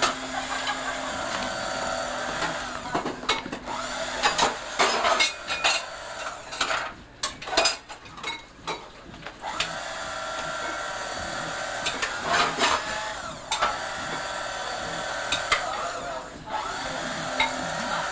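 Electric carving knife running in bursts as it cuts through a roast turkey, a steady motor whine that stops for several seconds in the middle. The gap is filled with clicks and clatters of metal on the pan.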